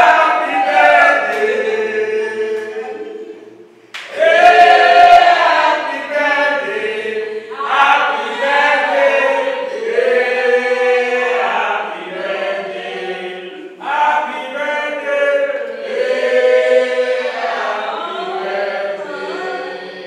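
A group of people singing together without instruments, in long held phrases that start anew every few seconds, loudest about 4 s in.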